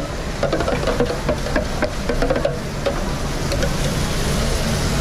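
Busy restaurant kitchen: a steady low hum, with sharp clinks and knocks of pans and utensils through the first three seconds and faint voices behind them.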